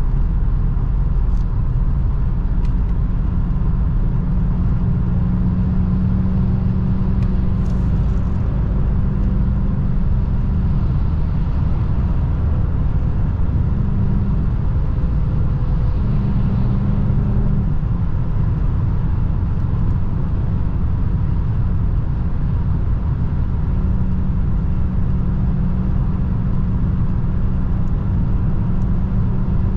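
A 2003 Mercedes-Benz E500 4Matic's 5.0-litre V8 drones steadily under heavy road and wind noise as the car cruises. The low engine hum fades out about a third of the way in and returns near the end.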